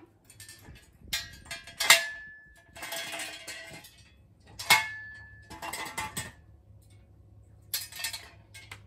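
Steel jack stands being pulled out and set down, clanking and rattling metal on metal, with two sharp clanks about two and five seconds in that ring briefly.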